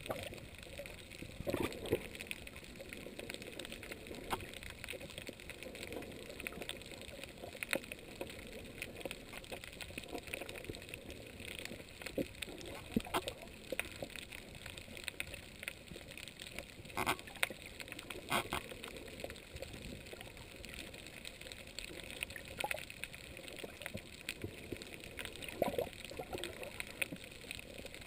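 Underwater reef ambience picked up by a submerged camera: an even watery hiss dotted with small clicks and crackles, with two sharper clicks about two-thirds of the way through.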